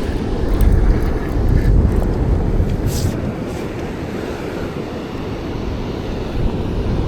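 Wind buffeting the microphone on an open ocean beach, with a steady low rumble of surf beneath it. There is a single sharp click about three seconds in.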